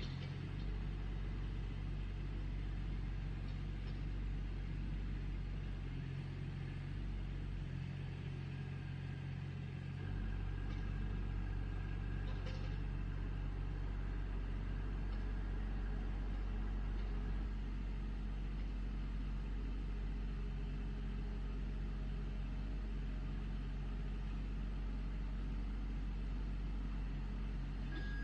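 Backhoe engine running steadily at a low, even note, which shifts for a few seconds about six seconds in, with a faint click near the middle.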